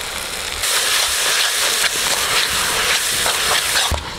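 Onion-tomato masala sizzling and frying in a black iron kadai over a wood fire, with fine crackling through the hiss. It grows louder about half a second in and drops away suddenly near the end.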